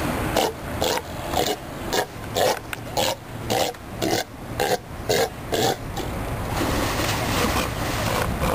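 A South American sea lion barking in a quick series of about a dozen short calls, roughly two a second, stopping about six seconds in.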